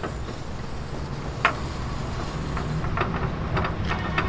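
Light metallic clicks as a rivet is pushed into a drilled hole in a steel truck chassis frame rail: one sharp click about a second and a half in, then a few lighter ones near the end. Underneath is a steady low machine rumble.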